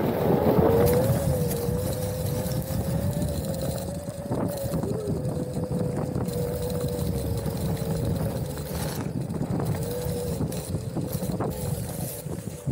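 Onewheel electric board's hub motor whining at a steady pitch that wavers slightly as the speed changes, over a low rumble from the board rolling on a rough dirt trail.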